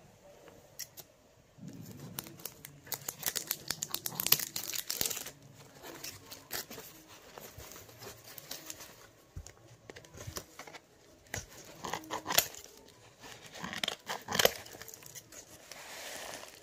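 Brown kraft-paper wrapping around a potted plant being cut with scissors and torn open, with irregular paper crackling and tearing. A dense run of snips and rips comes a few seconds in, and louder single crackles come near the end.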